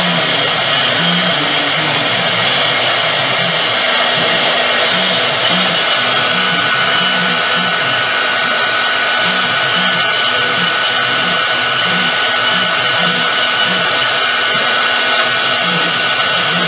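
CNC router spindle running at high speed while a small end mill engraves lettering into a white-faced board: a steady whine mixed with cutting noise. A thin steady tone joins in about five seconds in.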